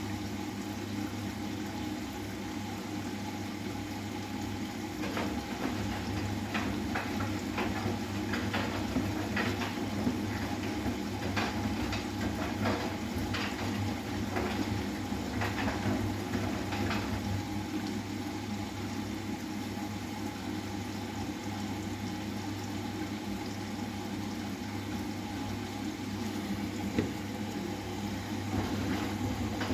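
Bosch WGA252Z0TR washing machine filling and turning its drum early in a 90 °C cotton wash of towels: a steady motor hum with running water. Splashes and soft knocks from the wet laundry tumbling are thickest from about five to seventeen seconds in.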